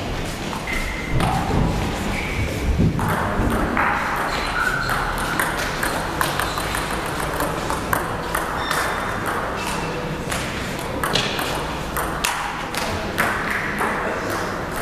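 Table tennis rally: the ball clicking off bats and table in quick, uneven succession, with a few short high squeaks in between.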